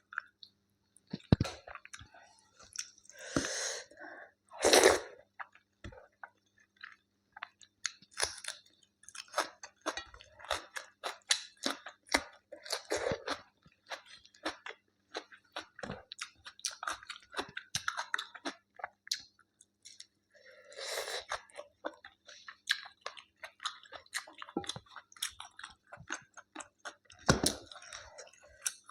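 A person eating close to the microphone: steady chewing made of many short mouth clicks, with a few louder bites, about three and five seconds in, around twenty seconds, and near the end.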